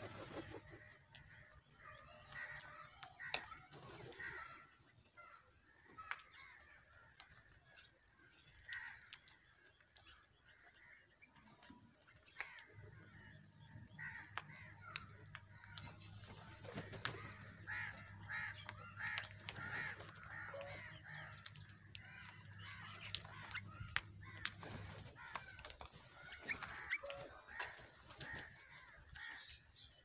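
A flock of house crows calling as they feed, many short caws overlapping throughout. A steady low hum runs underneath for the first few seconds, then again from about 13 s to 25 s in.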